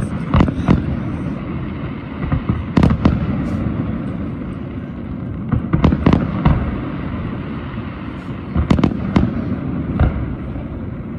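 Fireworks display: aerial shells going off in clusters of bangs and crackles, near the start, about three seconds in, around six seconds, near nine seconds and again at ten, over a constant low rumble.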